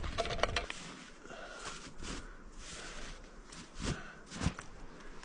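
Faint, intermittent scraping and crunching of snow against a cooking pot as it is scoured out, with two sharper knocks about four seconds in.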